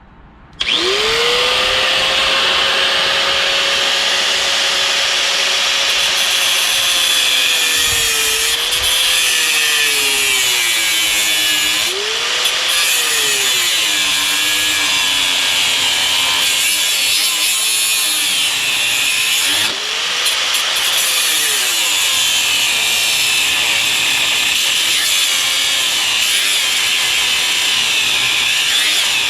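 Electric grinder starting up and grinding through rusted, stripped bolts on a steel floor rail. The motor's pitch sags again and again as the disc is pressed into the metal, over a steady gritty hiss.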